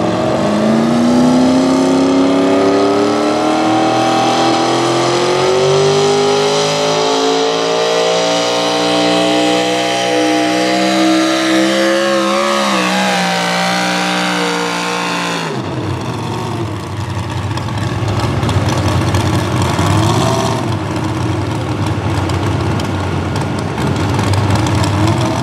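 Modified small-block V8 of a 4x4 pulling truck at full throttle dragging the pulling sled. The revs climb steadily for about twelve seconds and waver briefly. About fifteen seconds in the throttle is cut and the sound drops to a lower, rougher rumble.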